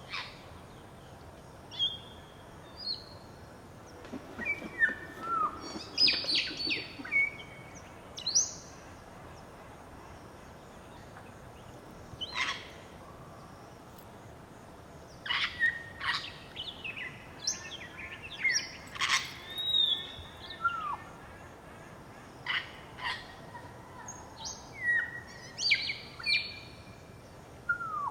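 Grey parrot (Psittacus erithacus erithacus) calling: clear short whistles, rising and falling glides and sharp clipped calls, in bursts separated by quiet pauses.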